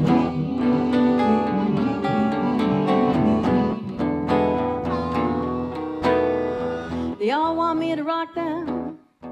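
Blues band instrumental break: a harmonica solo over strummed acoustic guitar. About seven seconds in, a woman's voice comes in singing with a wide vibrato.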